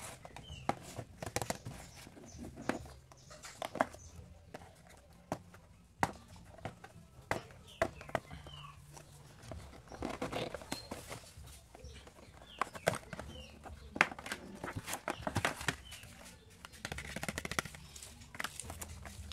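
Fingers tapping, scraping and gripping a Samsung Galaxy A54 5G cardboard retail box, with many short sharp taps and clicks, then the lid and card insert lifting off with soft paper-and-cardboard rustling.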